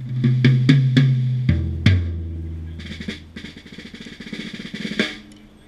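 Acoustic drum kit: a tom struck four times in quick succession, then a lower tom hit twice and left ringing, followed by a quieter snare drum roll that ends in an accented hit near the end.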